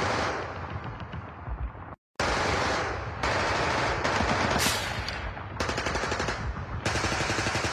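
Bursts of rapid automatic gunfire in several abruptly edited sections, broken by a brief total silence about two seconds in.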